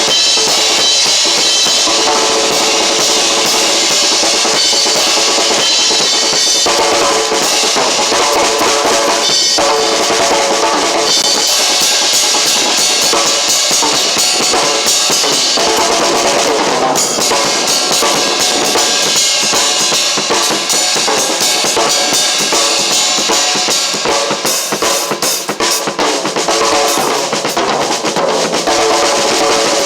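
A drum kit being played continuously, kick and snare, along with music.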